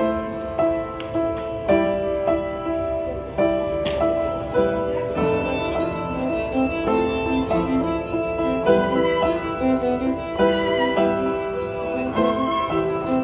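Background instrumental music led by a violin, a melody of held notes changing every fraction of a second.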